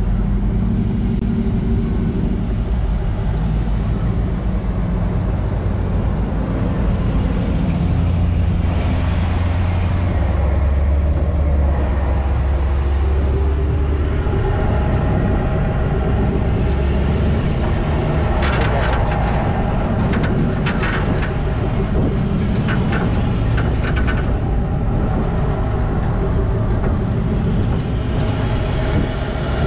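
Pickup truck driving slowly on sand, its engine giving a steady low rumble. A run of short sharp clicks comes about two-thirds through.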